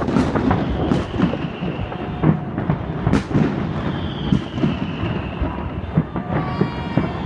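Fireworks display going off: a rapid string of overlapping booms and bangs with a continuous low rumble between them, and a faint high whistle about four seconds in.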